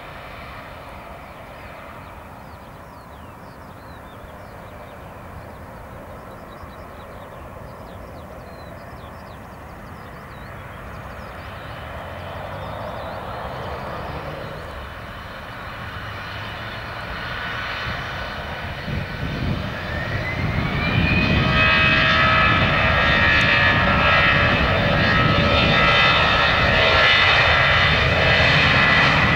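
Airbus A320 jet engines spooling up on the runway. A low jet rumble swells gradually. About two-thirds of the way through it rises in pitch into a much louder, steady whine at high thrust.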